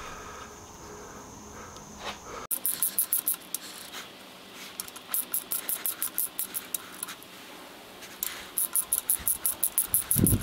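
Hand socket ratchet clicking in quick runs as it spins down connecting rod cap bolts. There are several spells of rapid ticking, about ten clicks a second, with short pauses between, starting a couple of seconds in.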